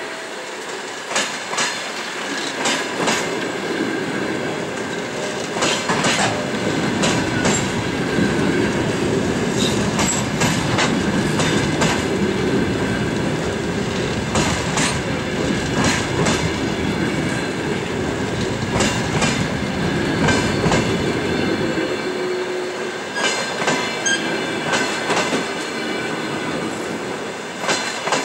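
Passenger coaches of a departing train rolling past: wheels clacking over rail joints in irregular clicks over a heavy rumble that swells through the middle and eases near the end, with a thin, steady squeal from the wheels.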